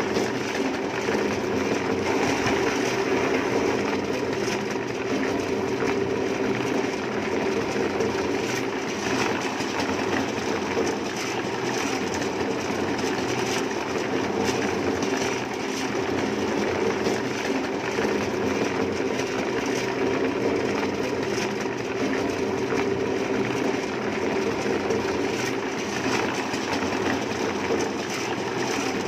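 A machine running steadily without pause, a constant mechanical drone.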